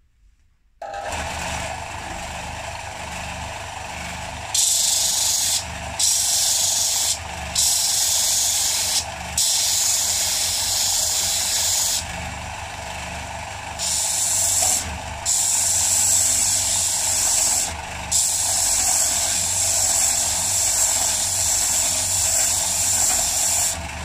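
Electric disc sander switched on about a second in and running steadily, with a block of very hard morta (fossil bog oak) pressed repeatedly against its 60-grit abrasive disc: about seven loud, hissing grinding passes, a few seconds each, with short breaks between.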